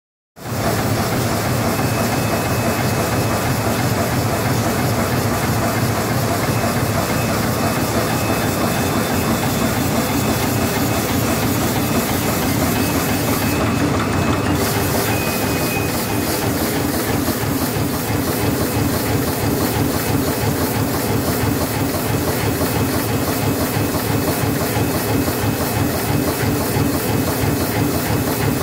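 Plastic bag-making machine, a glue patch handle bag machine, running at production speed: a steady, rapid, even mechanical clatter with a hiss as it cuts and stacks printed bags. The sound starts abruptly just after the beginning.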